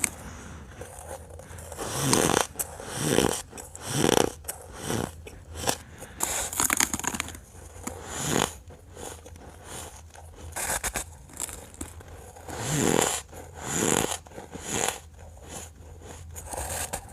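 Ice being bitten and crunched between the teeth close to the microphone: a series of separate crunchy bites, the loudest about two to four seconds in and again around thirteen to fifteen seconds.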